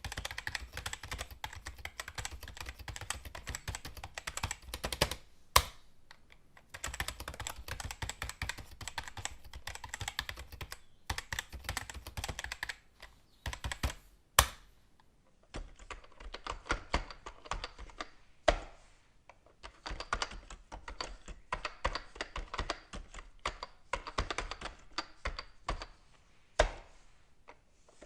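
Fast typing on a computer keyboard: dense runs of rapid key clicks broken by short pauses, with a few louder single key strikes standing out, around six seconds in, fourteen, eighteen and near the end.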